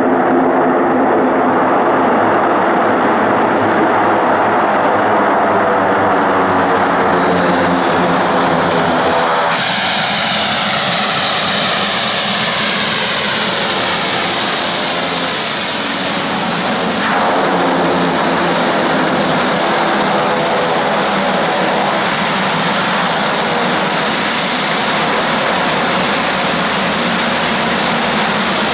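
Turboprop aircraft engines running loud and close throughout. About ten seconds in the sound changes, and from then on its tones sweep up and down as the plane moves.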